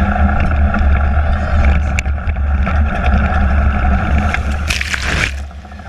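A human-powered kinetic sculpture rolling down a concrete boat ramp and entering the water: a steady low rumble and rattle from the machine, then a rush of splashing water over the machine about four and a half seconds in, lasting about a second before the sound drops away.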